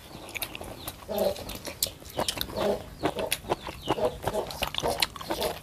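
Spoons clinking against small porcelain bowls during eating, with chickens clucking in short calls a few times in the background.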